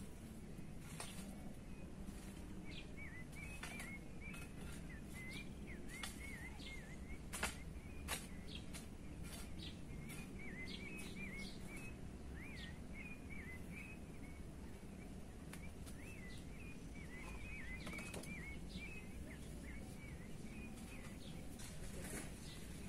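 Small birds chirping over and over in short wiggly notes, over a steady low outdoor rumble. Occasional sharp knocks from a hoe working the dry soil, the loudest two about seven and eight seconds in.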